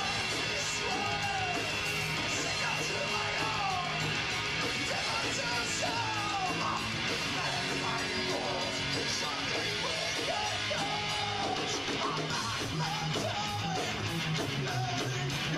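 Heavy metal band playing live: distorted electric guitars, bass and drums, with a male singer's voice yelling over them.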